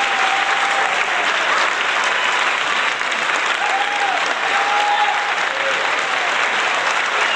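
Crowd applause sound effect: many hands clapping steadily, with a few faint drawn-out cheering voices over it.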